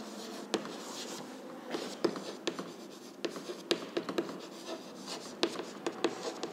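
Chalk writing on a blackboard: a string of irregular taps and scratches as the letters are formed.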